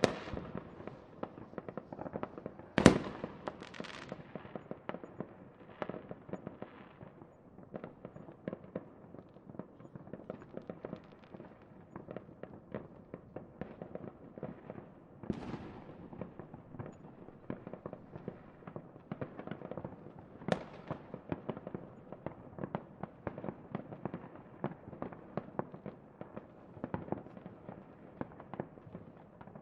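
Fireworks crackling and popping in a dense, continuous stream of small rapid bursts, with three louder bangs standing out: one about three seconds in, one about halfway through, and one about two-thirds of the way through.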